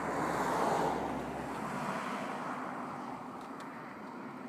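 A road vehicle passing close by: tyre and engine noise that swells to its loudest about a second in, then slowly fades away.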